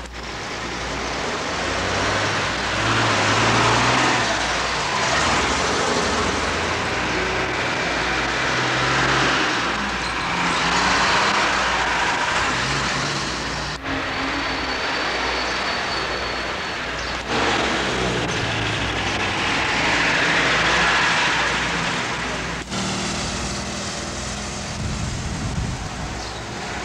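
Street traffic: engines of buses and cars running and passing, swelling and fading several times over a steady noise bed, with a few sudden short breaks.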